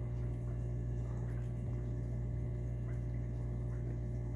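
Aquarium equipment running: a steady low hum with faint water burbling.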